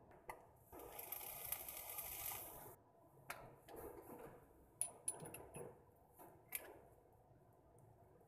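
Small metal parts of an RDA vape atomizer being handled: a faint rasping hiss for about two seconds, starting under a second in, then a handful of small sharp metallic clicks and taps as the parts are set down and fitted together.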